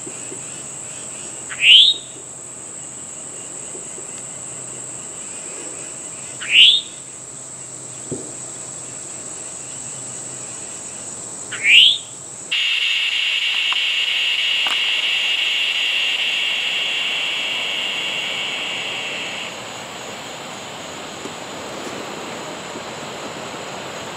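Woodland insect chorus: a steady high-pitched insect drone, with three short rising calls about five seconds apart in the first half. About halfway through, the sound changes abruptly to a louder, lower insect buzz that runs for several seconds and then stops.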